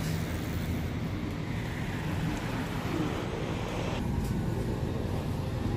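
A city bus's engine running, a steady low hum in a broad haze of street traffic noise. The hiss above it drops away abruptly about four seconds in.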